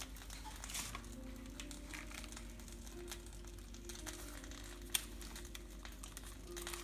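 Baking paper crinkling and rustling under hands folding pizza dough over its filling and pressing the edges shut, with one sharp tap about five seconds in.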